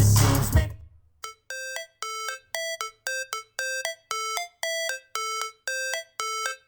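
Music playing through a Klipsch The One Bluetooth speaker. A rap track fades out within the first second. After a short gap a new piece begins with a run of short, separate keyboard-like notes, about two a second.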